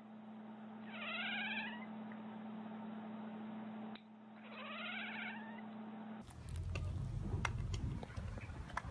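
Domestic cat meowing: two short rising meows about three and a half seconds apart, over a steady low hum. After a cut, a few sharp clicks and taps with a low rumble.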